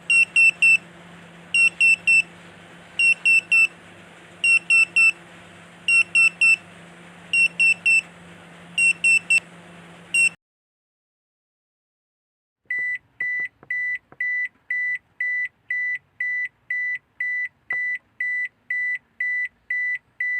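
Electronic alarm buzzer of a wiring short-circuit protection unit beeping: groups of three loud high beeps about every second and a half over a low steady hum. After a pause of about two seconds it switches to single, lower and quieter beeps about twice a second, a different alarm pattern.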